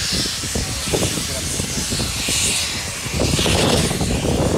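Steam trains running side by side on parallel tracks, heard from an open carriage window: a low running rumble with irregular knocks and a hiss of steam, over passengers' voices. The noise grows louder about three seconds in.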